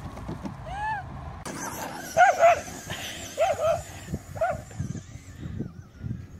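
A dog barking about five times, mostly in quick pairs, from about two seconds in, over a low steady rumble; a short whine comes just before.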